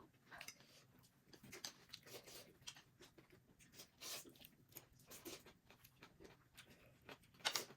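Faint eating sounds: quiet chewing and mouth noises with scattered small clicks, and a louder sharp noise near the end.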